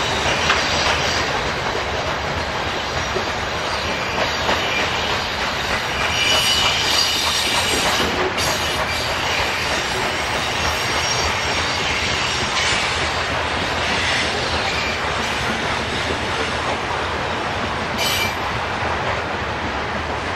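Covered hopper cars of a freight train rolling steadily past close by: a continuous rumble of steel wheels on rail with clicking over the rail joints. Now and then a thin high wheel squeal rises above it.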